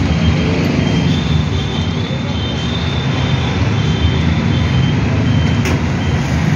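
Steady vehicle engine and road traffic noise, with faint high-pitched tones coming and going.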